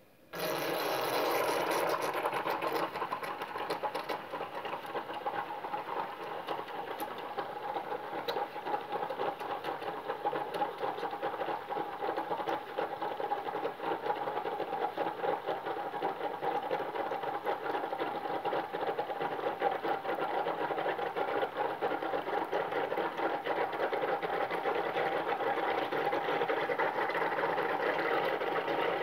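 Bathroom tap running, its stream of water pouring onto and into a water-filled condom in the sink. The flow comes on abruptly just after the start and then runs steadily.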